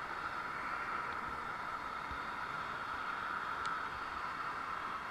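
Steady hiss of expressway traffic and wind on the microphone, heard from a bicycle riding alongside the road, with one faint click about three and a half seconds in.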